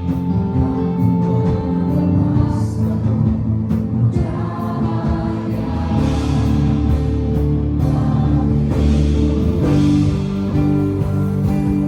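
Live Christian worship music: singers with a band playing a gospel song, with steady held chords.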